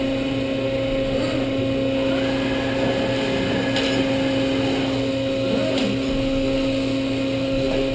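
DeHoff 218 four-spindle gun drill running with its automation: a steady mechanical hum carrying a constant pitched tone, with a few light clicks about four and six seconds in.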